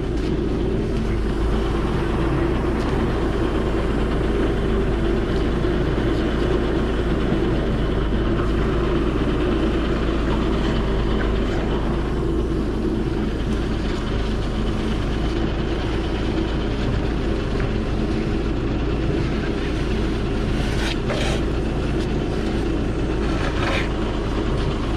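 Septic vacuum truck's engine running steadily, driving the suction pump as the septic tank is pumped out.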